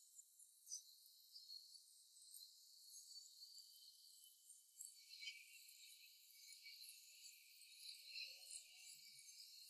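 Faint chorus of crickets chirring, a steady high buzz flecked with small chirps.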